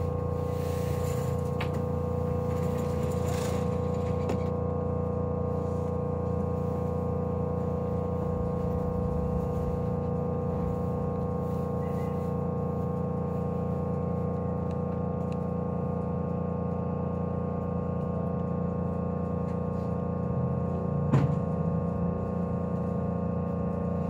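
Interior running noise of a Meitetsu 2000 series μSKY train heard inside the car: a steady hum of several fixed tones with no rise or fall in pitch. A hiss fades out about four seconds in, and a single sharp knock comes near the end.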